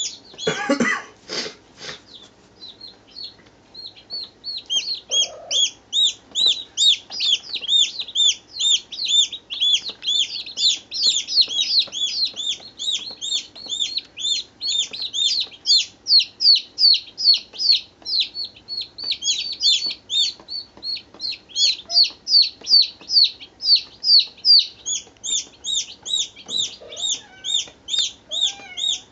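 Baby chicks peeping continuously, several at once, in a quick unbroken stream of short high-pitched cheeps, several a second. A brief rustle near the start.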